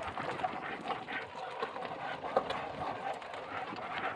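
Several dogs' paws pattering on the ground as they jog beside a moving golf cart: many irregular light taps over a steady rustling noise.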